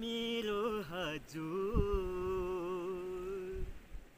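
A man singing a Nepali folk song unaccompanied: a phrase full of quick ornamented turns, then one long held note that fades out near the end. There is a brief thump about halfway through.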